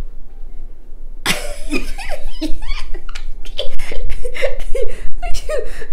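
A woman laughing in repeated bursts, starting about a second in and growing louder.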